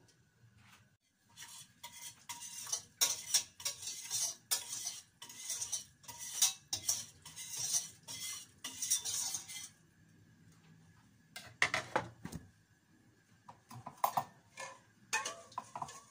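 Metal spoon scraping and clinking against a steel pot and dishes, a quick run of strokes for about eight seconds as the skin is skimmed off the heated milk, then a few separate clinks near the end.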